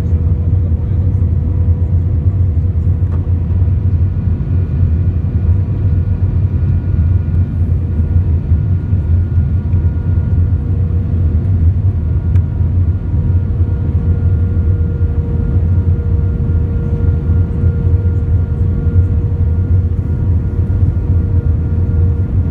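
Steady cabin noise inside a British Airways Airbus A320 in flight: a deep, even rumble of engines and airflow, with a faint steady hum and whine of the engines running through it.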